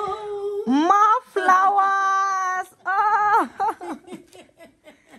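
A woman's voice holding long, drawn-out sung notes, sliding up in pitch about a second in, then stopping about three and a half seconds in, after which only faint short clicks remain.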